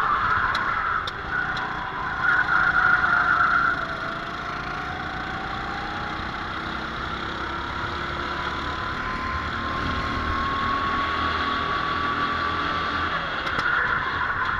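Racing kart engine heard from on board, running at speed: its note climbs steadily for several seconds as the kart accelerates down a straight. The noise is louder and rougher in the first few seconds and again near the end, with other karts close ahead.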